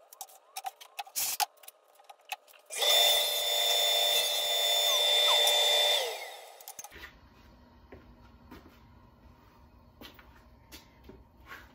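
Table saw run for about three seconds with a steady motor whine as it trims the edge of an Eastern white pine board, then switched off and spinning down. Before it, light clicks and knocks of boards being handled.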